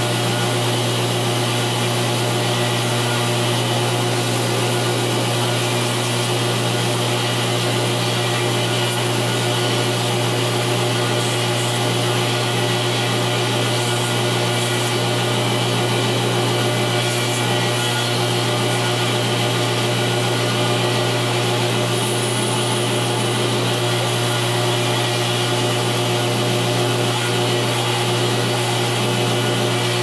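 A 2x72 belt grinder running steadily, with the steel blade of a folding pocket knife held against the moving belt and being ground.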